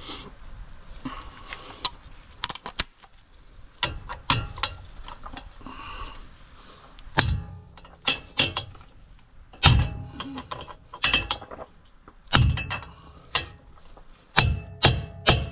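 Hammer blows on a bearing race driver, driving a pinion bearing race into a pickup's differential housing, each strike ringing metallically. The blows come singly and in pairs at first, then as a quick run of about two to three a second near the end.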